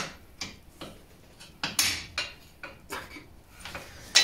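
Hand tools and loose suspension parts clinking and knocking against a steel tube chassis in an irregular series of sharp metallic clicks, with one loud clank near the end.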